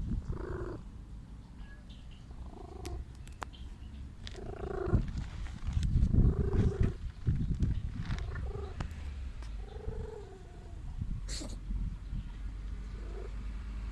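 Domestic cat purring steadily, with a short mew every second or two.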